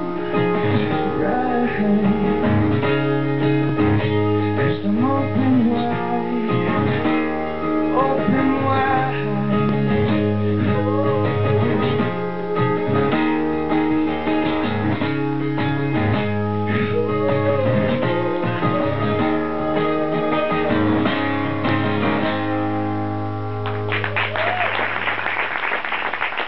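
Acoustic guitar strummed through a song's closing bars, with a man singing wordless held notes over it for the first half. The last chord rings out and audience applause begins near the end.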